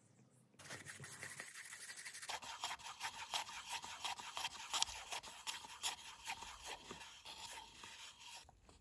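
Wooden stir stick scraping quickly round the inside of a paper cup, mixing resin. The fast, even strokes begin about two seconds in and fade near the end.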